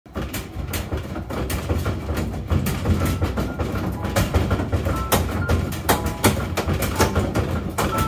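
Top-loading washing machine rumbling and banging in its spin, the tub knocking irregularly against the cabinet a few times a second. It is the sign of an unbalanced load on a washer whose suspension rods are worn out.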